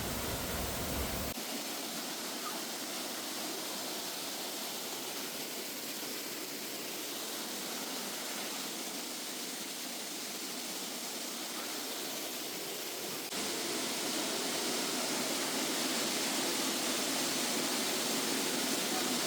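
Waterfall rushing: a steady noise of falling water that steps up louder about 13 seconds in.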